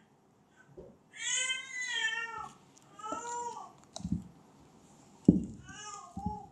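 A cat meowing three times, the first a long drawn-out meow, the others shorter. Low thumps and one sharp knock about five seconds in, from a cup being handled on the table.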